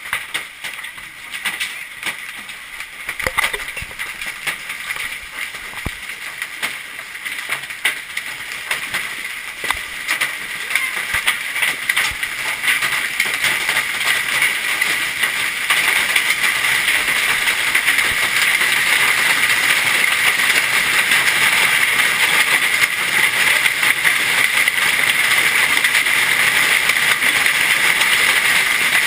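Golf-ball-sized hailstones pelting down, scattered sharp cracks at first that thicken into a dense, continuous clatter, louder from about halfway through.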